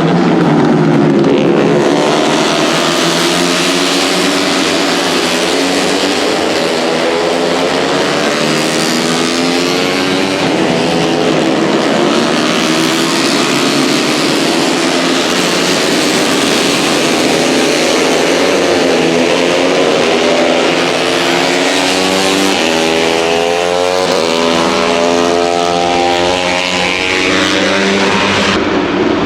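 A pack of KTM RC250RBR single-cylinder four-stroke race bikes at full throttle, several engines overlapping as they rise and fall through the gears, with rising sweeps of acceleration in the second half.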